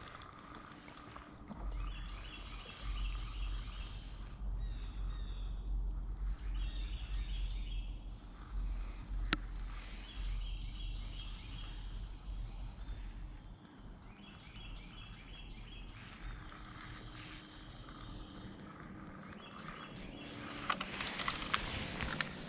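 Insects calling: a steady high-pitched drone with short pulsed chirps repeating every second or two. A low rumble runs under the first half or so, and handling clicks and rustling come near the end.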